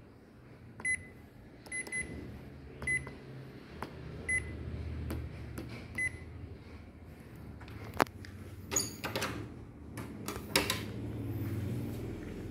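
Ricoh MP 5002 copier's touchscreen control panel beeping at key taps: about six short, high beeps spread over the first six seconds. Later come a sharp click and some rustling knocks, over a steady low hum from the running copier.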